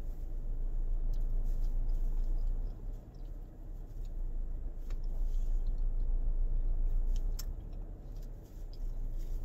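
A low, steady rumble inside a car, with faint scattered clicks and mouth noises of someone chewing banana.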